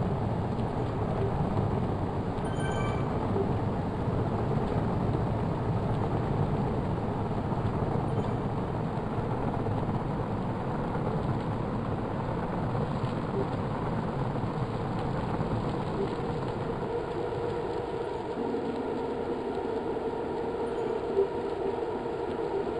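Steady vehicle rumble. A low steady hum joins near the end, and there is one sharp knock shortly before the end.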